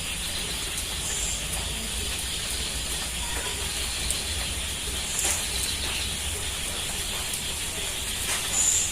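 Steady high-pitched outdoor hiss over a low rumble, with a few short high chirps about a second in, midway and near the end.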